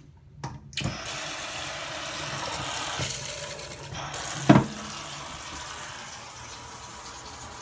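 Kitchen tap turned on, water running steadily into the sink, with one loud knock about halfway through.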